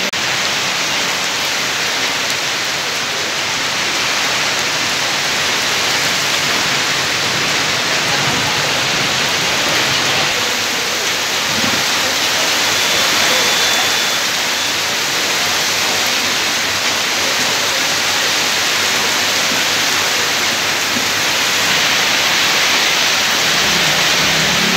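Heavy rain falling steadily on a wet paved street.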